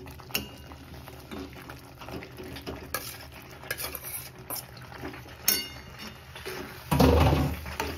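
Cooked macaroni tipped into thick tomato sauce in a metal pan and stirred with a perforated metal spoon: scattered clinks and scrapes of metal on the pan, with a louder bump about seven seconds in.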